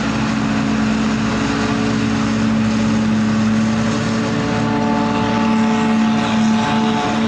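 Heavy diesel engines of a Fendt tractor and a forage harvester running steadily under load while chopping maize into a silage trailer: a loud, even drone with a strong low hum. About halfway through, higher steady tones join in.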